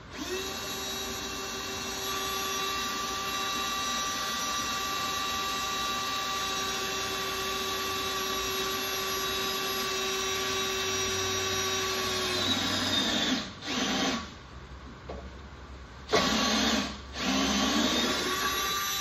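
Milwaukee cordless drill running steadily under load as a Matco Hyper Step bit cuts through a hardened steel brake rotor. Its motor tone sags and stops about 13 seconds in. It then starts again in three short runs as the bit breaks through.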